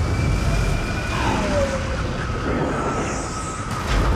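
Film sound of a military helicopter blowing up: the heavy low rumble of the blast and fireball, with a sharp crash about four seconds in.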